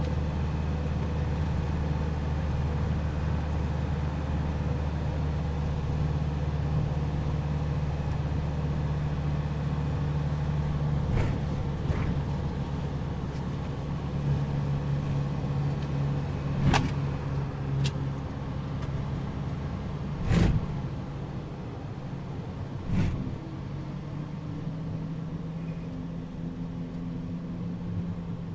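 Isuzu truck's engine and road noise heard from inside the cab while cruising, a steady low hum. A handful of sharp clicks come in the middle stretch, and the engine note shifts and rises slightly over the last few seconds.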